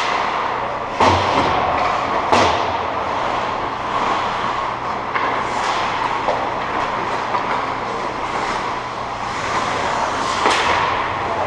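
Ice hockey play: skates scraping and carving on the ice, with sharp clacks of sticks and puck about one second in, again about two seconds in, and near the end.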